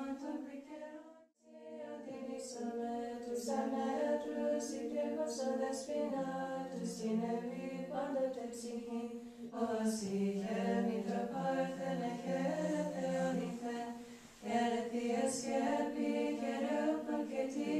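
Nuns chanting a cappella, Greek Orthodox Byzantine chant: several women's voices singing a slow melody over a long-held low drone note. The singing drops out briefly about a second in, then carries on.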